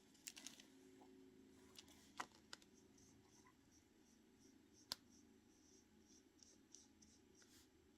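Near silence with faint scratching and a few light taps: a small paintbrush spreading Mod Podge glue on paper, with one sharper tick about five seconds in.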